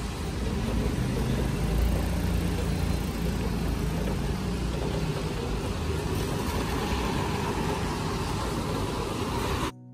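Street traffic on a wet road, cars and a motorcycle passing, a steady noisy rumble that cuts off suddenly near the end as music comes in.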